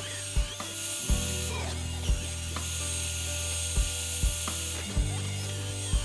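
CNC router milling a round oak knob: a steady low machine hum from the spindle and drive motors that shifts in pitch about a second in and again near the end, with sharp knocks at uneven intervals, six or seven in all.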